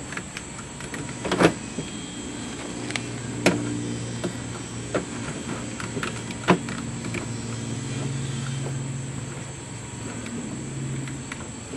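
Fasteners being worked out of a car door's lock and trim hardware: sharp metal clicks and knocks of the tool and parts, three of them louder. Under them, from a few seconds in, runs a low steady hum that rises slightly in pitch near the end.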